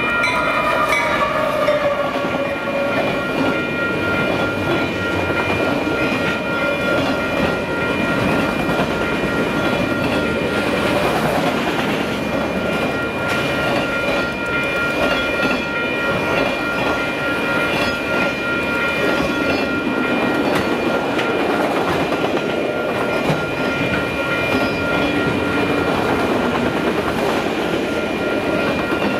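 Freight train rolling past close by: over the first few seconds the lead diesel locomotive's pitched sound falls as it goes past, then a long string of autorack and freight cars rolls by with wheels clacking over rail joints, a steady rumble and a thin, steady high tone throughout.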